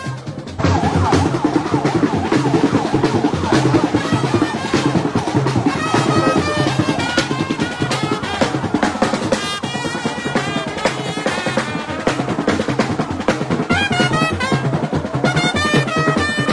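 Band music driven by drums: a steady drum beat with a pitched melody line over it. It gets suddenly louder just under a second in.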